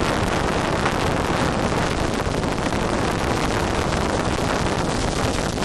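Strong storm wind blowing hard and buffeting the microphone in a steady roar, with no distinct knocks or breaks.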